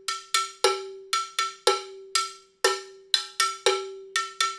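Handheld cowbell struck with the butt end of a wooden stick in a steady rhythmic pattern, about three to four strokes a second. Each stroke is a sharp metallic clank that rings briefly at one pitch.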